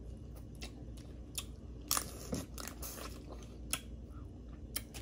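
Boiled crawfish shells cracking and crunching as they are peeled by hand and eaten, with chewing: scattered sharp cracks, the loudest about two seconds in.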